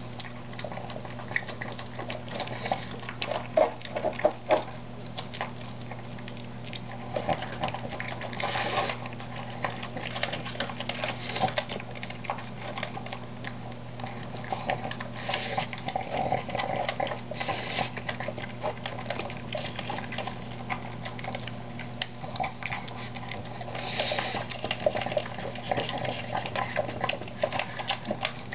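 Pug eating dry food from a plastic bowl: continuous, irregular chewing and crunching that comes in louder spells.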